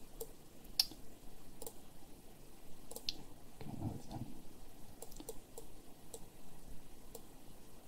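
About a dozen irregularly spaced computer mouse clicks while the lighting software is being operated, several coming in a quick cluster about five seconds in. A brief low-pitched sound comes about four seconds in.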